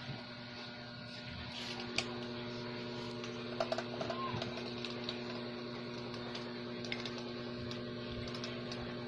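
A steady mechanical hum with held low tones, a second tone joining about two seconds in, and scattered light clicks over it.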